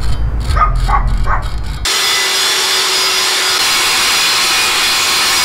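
A low rumble for about two seconds, then a grinder's spinning disc grinding the tip of a metal propeller blade, a loud, steady hiss with a faint hum. The blade tip is being trimmed a little because it sits too close to the ring around the propeller.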